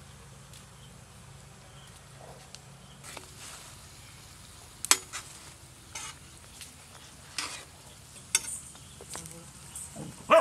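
Cooking utensils knocking and scraping in a pan several times, with a faint sizzle of frying. The sharpest knock comes at the very end.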